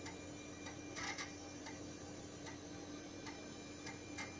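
Disk drive heads seeking with irregular ticks as files copy from a floppy disk to an old hard disk, over a steady low hum.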